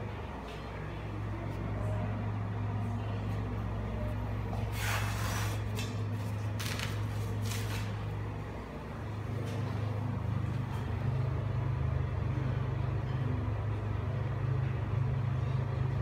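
Airguide centrifugal exhaust fan running with a steady low hum. A few short rustles of tissue paper come about five to eight seconds in.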